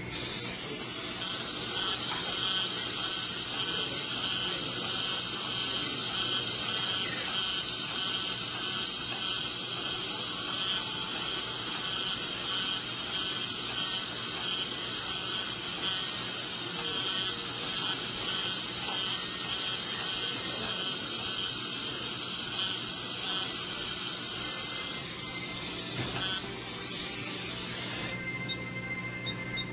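Dental handpiece cutting gum tissue during a frenectomy: a steady, loud spray-like hiss with a fast, even ticking underneath, mixed with suction. It stops abruptly near the end.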